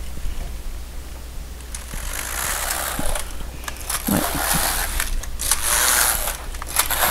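Passap knitting machine lock pushed across the needle beds, knitting a row with each pass: four hissing slides about a second each, back and forth, the last rows before casting off.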